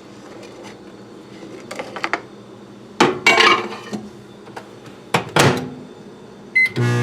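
Several knocks and clinks of a plate and the microwave door being handled, then a short keypad beep and the microwave oven starting up with a steady hum near the end.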